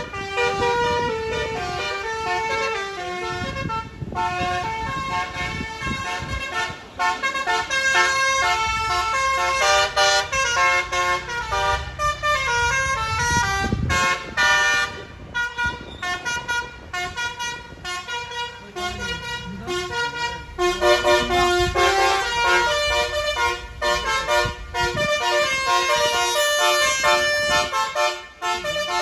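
Tour bus's multi-tone telolet horn playing a long running melody, the notes changing several times a second, over the low rumble of the bus engine.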